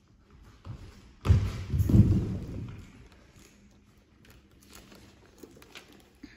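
Dancers dropping onto a hardwood studio floor: two heavy thuds, about a second and two seconds in, followed by faint taps and scuffs of feet and bodies on the boards.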